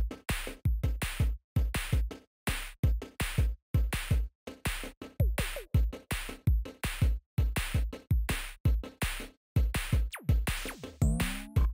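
Electronic background music with a drum-machine beat that starts abruptly: sharp, choppy hits about two to three a second with short dead gaps between them, and a gliding synth sweep near the end.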